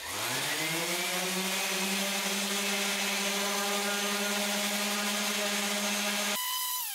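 DeWalt random orbital sander running on a Corian-and-walnut trivet. Its motor rises in pitch as it starts, holds a steady hum with the pad rubbing the surface, then winds down with a falling whine near the end.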